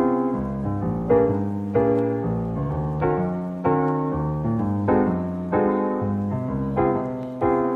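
Background piano music, with a new note or chord struck about once a second and each one fading until the next.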